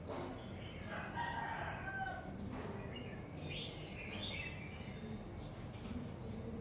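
A rooster crowing once, a drawn-out call starting about a second in, with small birds chirping high and briefly around it over a steady low background noise.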